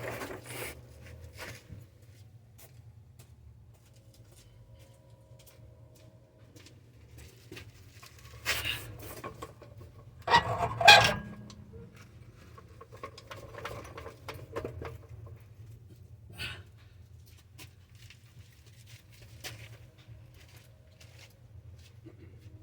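Dodge Durango exhaust being let down on a floor jack: mostly a low steady workshop hum, broken by two louder metallic scraping knocks about halfway through and a smaller click later.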